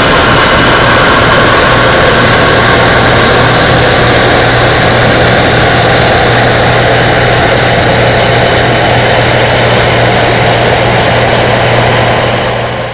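Bizon Z056 combine harvester running under load while harvesting, its engine and threshing machinery making a loud, steady drone with a low hum beneath. The sound fades out near the end.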